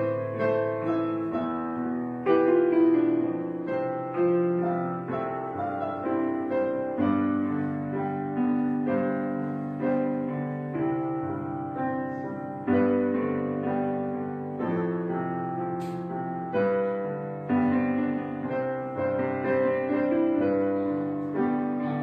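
Background piano music: a slow, gentle piece of struck notes that ring and fade.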